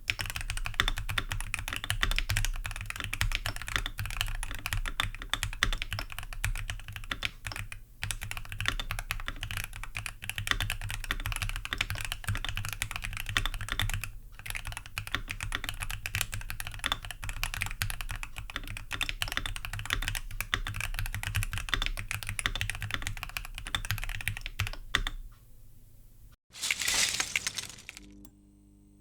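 Fast continuous typing on an Epomaker Magcore87 keyboard with Kailh BOX inductive switches: a dense stream of key clicks and clacks, with two brief pauses, the typing stopping a few seconds before the end. A short burst of noise follows near the end.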